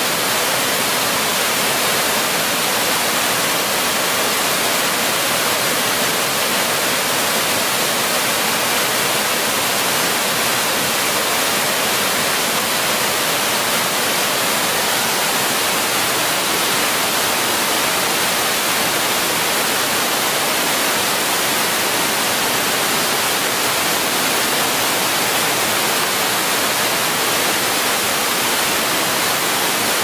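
Small waterfall cascading down a rock face and splashing over boulders: a steady, even rush of falling water.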